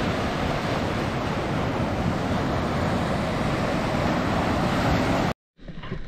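Steady, loud rush of surf and wind on the microphone at the seashore. It cuts off abruptly about five seconds in, and after a brief gap a much quieter sound with faint knocks follows.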